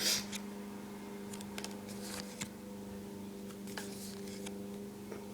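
Trading cards being handled and slid off one another: soft swishes and light clicks, the loudest right at the start, over a steady low electrical hum.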